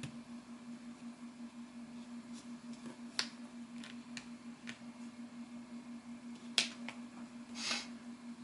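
A few sharp plastic clicks and a short scrape as a tablet's casing is pried apart with a plastic tool and its snap clips release, over a steady low hum.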